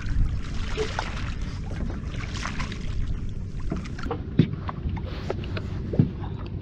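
Wind on the microphone and water slapping a small boat's hull, with scattered short knocks and clicks.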